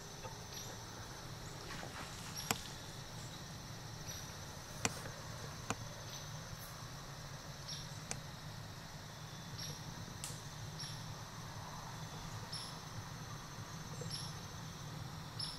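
Woodland ambience with insects trilling steadily and short high chirps repeating about once a second, broken by a few sharp clicks.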